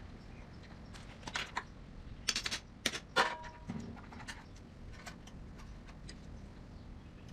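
Light metal clicks and clinks from tools and small parts being handled, in a few quick clusters, one clink ringing briefly.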